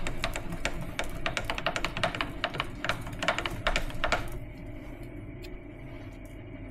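Milling machine running, with a rapid rattling tick from the rotary table under the cut that stops a little past four seconds in, leaving the machine's steady hum. The rattle is the sign of a loosened screw in the rotary table, which has rattled itself loose.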